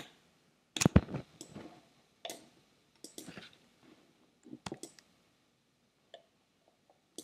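Irregular clicking of a computer mouse and keyboard being worked at a desk, loudest about a second in and thinning to a few faint clicks near the end.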